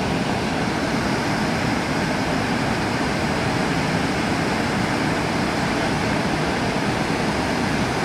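Awash Falls on the Awash River: a steady rush of falling water.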